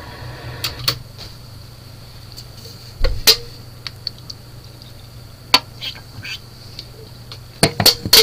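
Scattered sharp clicks and knocks over a steady low hum. The loudest is a pair about three seconds in, and a quick cluster of clicks comes near the end.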